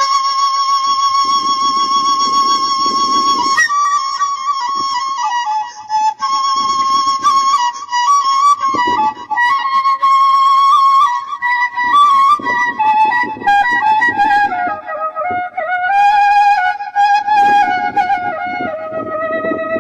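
Background music: a solo flute melody of long, slightly wavering held notes, stepping down to lower notes in the last several seconds.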